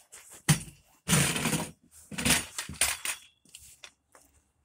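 Hand tiller with metal tines clattering and clinking against tools and gear as it is pulled out of a cluttered shed: a string of knocks and scrapes, the longest about a second in.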